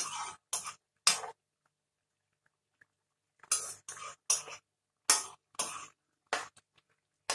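Metal ladle stirring and scraping through thick curry in a coated wok, in short strokes about two a second, with a pause of about two seconds in the middle.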